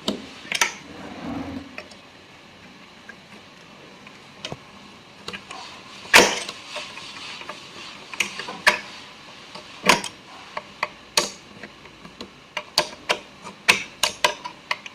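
Scattered sharp clicks and knocks of a screwdriver and metal sewing-machine parts being handled as a part is fitted back on and screwed in place. The loudest knock comes about six seconds in, and a quick run of small clicks comes near the end.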